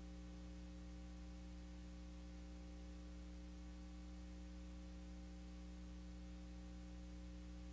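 Steady low electrical hum with faint hiss and no other sound: the noise floor of a blank stretch of old videotape.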